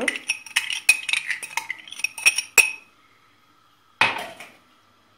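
Quick run of clinks and taps, with a ringing edge, as yogurt is knocked and scraped out of its tub into a plastic mixing bowl holding a hand mixer's metal beaters; it stops after two or three seconds. One short dull knock follows about four seconds in.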